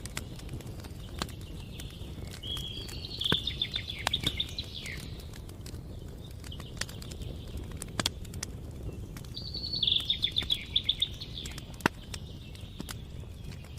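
Wood fire crackling, scattered sharp pops over a low rumble. A songbird sings a short high trilled phrase twice, about three seconds in and again about ten seconds in.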